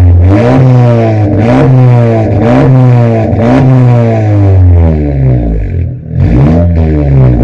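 Honda Civic Turbo's 1.5-litre turbocharged four-cylinder, blipped through a full-system racing exhaust while standing still. It revs up and falls back again and again, about once a second, then drops lower a little before the end and the blips start again.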